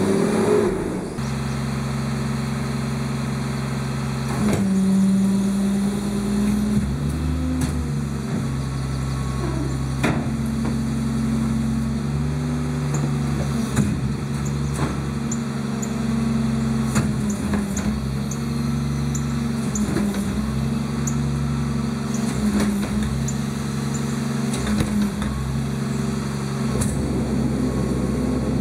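Side-loading garbage truck's diesel engine running at raised revs to drive the hydraulics while its cart tipper lifts and dumps wheeled trash carts into the hopper. The engine note swells and falls with each lift, and sharp clanks and knocks of the cart against the tipper and hopper come every few seconds.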